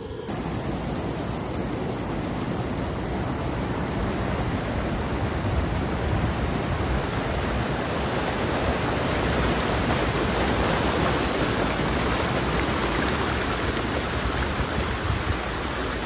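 Waterfall rushing steadily: a loud, even hiss of falling water with no let-up. It cuts in abruptly and cuts off just as abruptly at the end.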